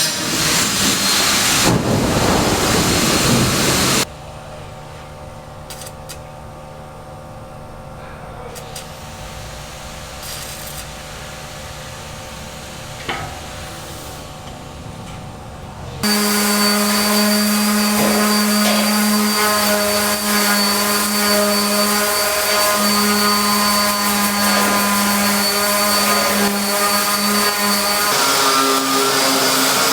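Construction power tools and machinery in separate clips cut together. First comes a sawing sound, then after a sudden cut a quieter steady hum, then a louder steady machine drone that stops abruptly near the end.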